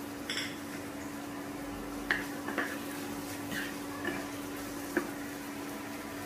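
Spoon clinking and scraping against a cooking pan about half a dozen times as garam masala is stirred into the prawn curry, over a steady low hum.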